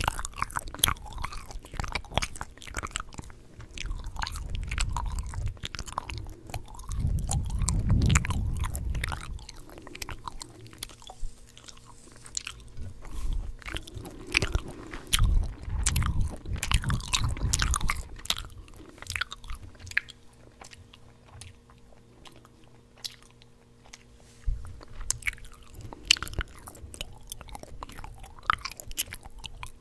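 Gum chewed right at the microphone: a steady run of wet, irregular smacking and clicking mouth sounds. A low rumble swells in and out a few times, loudest about a quarter of the way in and again around the middle.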